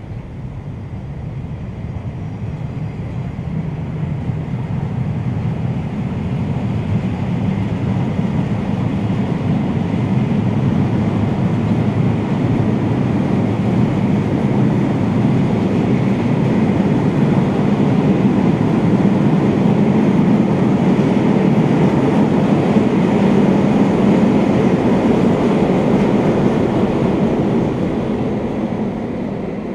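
Freight train of loaded double-deck car-carrier wagons rolling past: a steady rumble of wheels on rail that grows louder, holds, then fades near the end as the last wagons go by.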